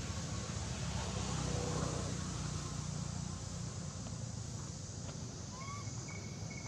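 Steady outdoor background noise with a low rumble. A faint high chirp repeats a few times near the end.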